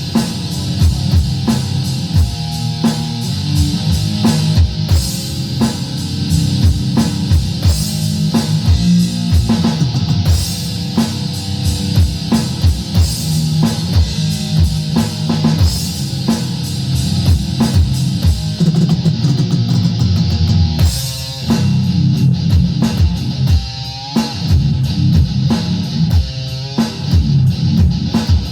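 Rock music played on guitar and drum kit, with steady drum hits under sustained guitar notes.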